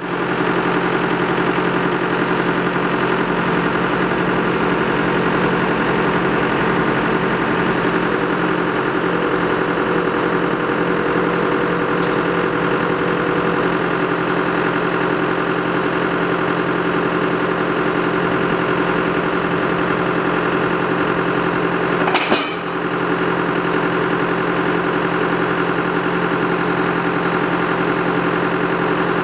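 A heavy-equipment engine idling steadily, with one short sharp knock about 22 seconds in.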